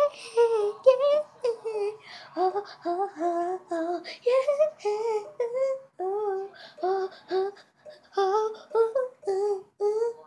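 A young girl singing on her own, in short phrases of held, wavering notes with brief breaks between them.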